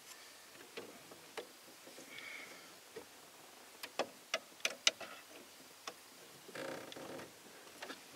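Small sharp clicks and taps of steering-column parts being handled and fitted by hand, scattered and thickest about four seconds in, followed by a short rustling scrape.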